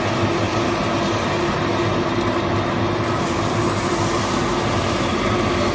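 Vacuum homogenizing emulsifying mixer running with its stirrer switched on: a steady mechanical hum and whir from its motors.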